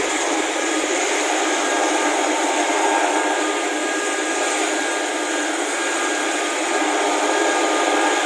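Military turbine helicopter running on the ground with its rotor turning before takeoff: a steady rushing noise with a faint high whine.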